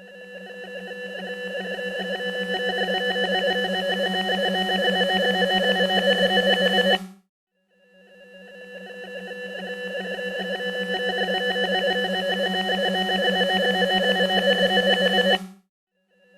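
Synthesized electronic swell sound effect: a steady, pulsing, chord-like electronic tone fades up gradually over about seven seconds and cuts off abruptly, twice, with a third swell starting just at the end.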